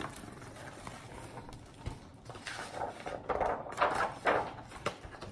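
A page of a hardcover picture book being turned and the book handled: a few soft papery swishes near the middle.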